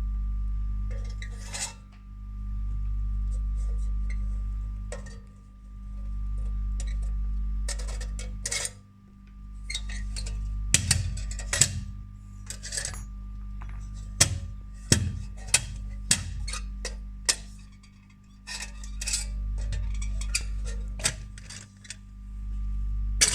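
Background music with slow swelling low notes, over light metallic clinks and taps of small steel pieces being handled, thickest in the middle stretch.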